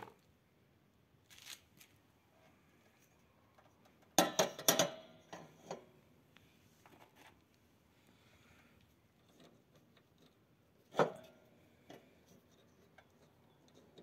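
Metal lawn-mower deck parts being handled and fitted by hand: a quick run of clinks and clatter about four seconds in and a single sharp knock about eleven seconds in, with near-quiet between.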